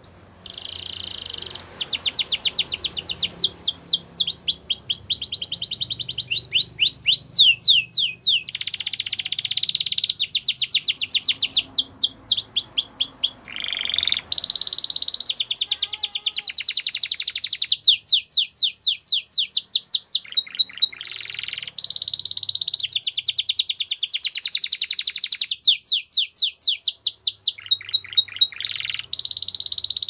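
Canary singing a long, loud song of rapid trills, each a quick run of repeated notes that shifts to a new phrase every second or two, with brief breaks about halfway through and near the end.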